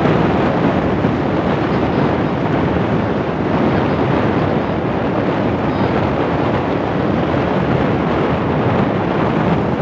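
Steady loud rush of wind buffeting the microphone on a moving motorcycle, with the motorcycle's running engine blended into the noise.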